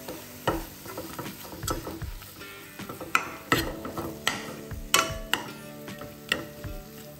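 Steel spoon stirring a thick onion, tomato and spice masala frying in oil in a black frying pan. The spoon scrapes and clacks against the pan irregularly, the loudest strikes about three and five seconds in, over a light sizzle.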